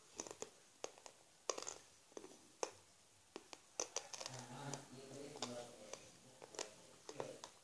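Satin ribbon being folded and pinched by hand: faint, irregular crackly rustles and clicks of the slick fabric. A quiet voice murmurs in the background from about four seconds in.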